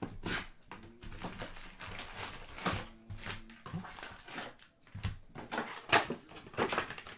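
Crinkling and rustling of cellophane-wrapped trading card packs and their cardboard box as a Panini Prizm cello box is opened and the packs are pulled out and set down in stacks, in a rapid irregular run of crackles.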